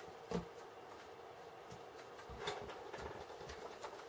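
Faint clicks and taps of plastic building bricks being handled and pressed onto a model. There are four small knocks spread out, the first, about a third of a second in, the loudest.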